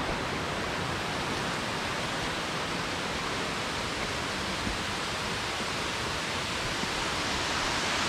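Steady, even rush of flowing water from the river and cascades, with no separate events.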